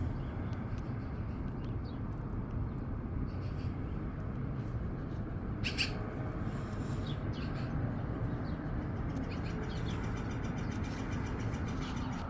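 Northern flicker calling: short, sharp calls scattered through, the loudest one about six seconds in, over a steady low rumble.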